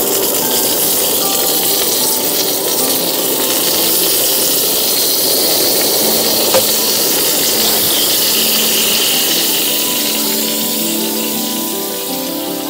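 Food frying in hot oil on a pan over a camp stove: a steady sizzle, with a small tick about halfway through.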